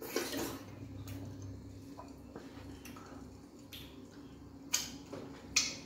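Eating by hand: wet squishing, chewing and lip smacking of fufu and soup, with two short sharp mouth noises near the end.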